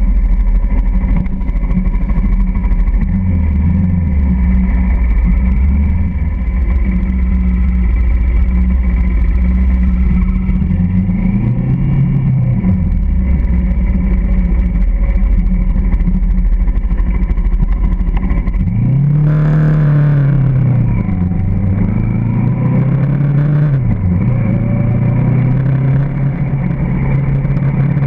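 Motorcycle engine running under way in the rain, with a steady low rumble over wind and road noise; its pitch rises and drops back a few times in the second half as the bike accelerates and changes gear.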